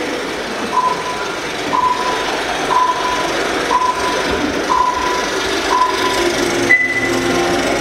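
Film-leader countdown playing over a hall PA. A short beep of the same pitch sounds once a second, six times, then a single higher beep comes about a second later, all over a steady hiss. Music begins to come in near the end.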